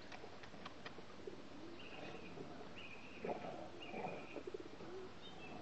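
Faint bird calls: short, clear high notes repeating roughly once a second, with some lower, softer sounds in the middle.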